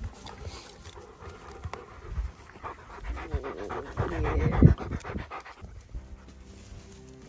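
A dog panting hard close to the microphone, the breaths coming fast and loudest about four to five seconds in. Background music comes in near the end.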